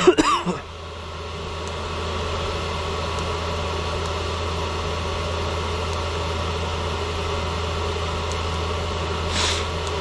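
Diesel parking air heater running with a steady fan-and-burner noise and a low hum, heard inside the tractor cab. About a second in, the level dips and then rises again over the next two seconds as the heater is turned up towards maximum power.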